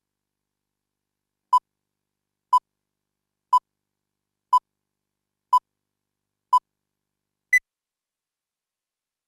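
Film-leader countdown beeps: six short, identical beeps a second apart, then a seventh, higher-pitched beep.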